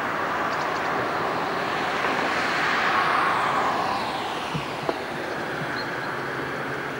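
Street traffic: a vehicle passes close by, its noise swelling to its loudest about three seconds in with a slight falling pitch, then easing off. A short click near five seconds.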